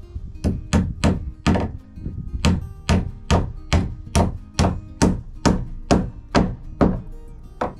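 Claw hammer toenailing a nail at an angle through a wooden roof rafter into the wall's top plate: a steady run of about sixteen blows, roughly two a second.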